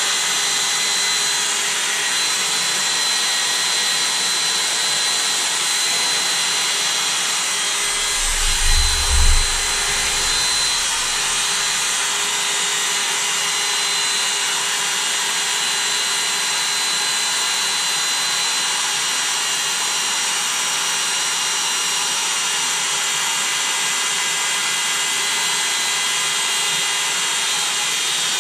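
Electric air pump running steadily with a faint whine, blowing air into an inflatable swim ring. A short low bump, like the ring or pump being handled, comes about eight to nine seconds in.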